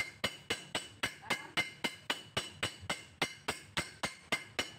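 Steady, rapid metal-on-metal tapping, about four strikes a second, each with a short bright ring: a steel tool striking the bearing in a Toyota Lite Ace alternator's aluminium end housing, driving the bearing into place during assembly.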